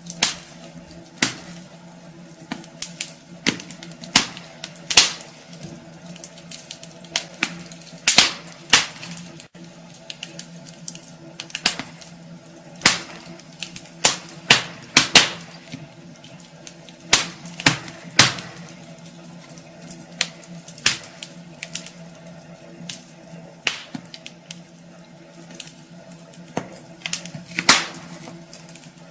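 Wood fire burning in a fireplace, the logs crackling with sharp, irregular pops, some louder than others.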